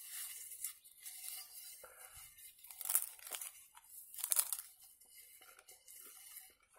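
Crisp homemade flatbread being torn and folded by hand on a plate, a series of irregular crackling rustles, the loudest about three and about four and a half seconds in.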